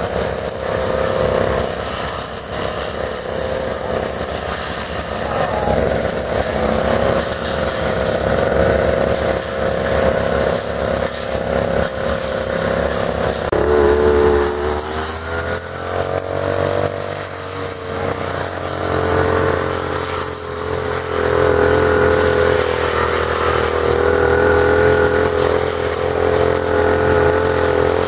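Petrol brush cutters running steadily, their engine pitch sliding down and back up about halfway through.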